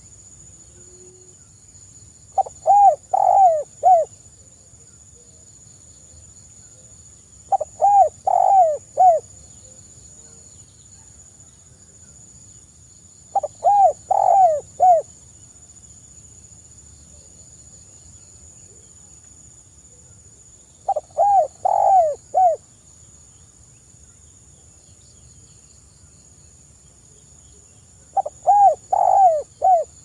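Spotted dove (tekukur) cooing: five phrases of about four rising-and-falling notes each, about a second and a half long, coming every five to seven seconds, over a faint steady high whine.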